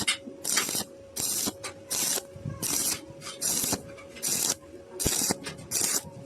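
Arc welding sizzling in short, evenly repeated bursts, about ten of them, roughly one every 0.6 s, as the cut in the iron is filled dab by dab. A steady faint hum runs underneath.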